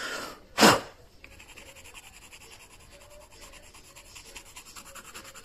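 A short, loud burst of breath about half a second in, then a Faber-Castell white coloured pencil scratching softly over tempera-painted card in quick, short strokes.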